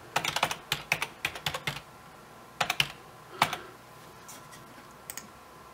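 Typing on a computer keyboard: a quick run of about a dozen keystrokes in the first two seconds, then a few scattered clicks, as an IP address is keyed in.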